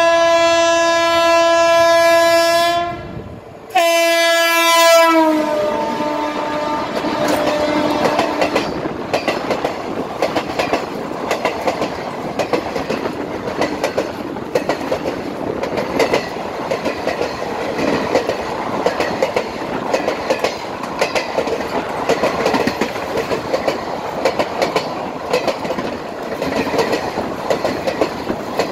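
Passenger train locomotive horn sounding a long blast and then a shorter second one that drops in pitch as the locomotive goes by. The train's coaches then rush past with a steady clickety-clack of wheels over rail joints.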